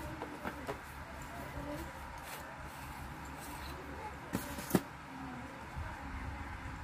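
Handling noise from a handheld wireless microphone as a battery is fitted into it: faint rubbing and shuffling, with two sharp plastic clicks a little after four seconds in.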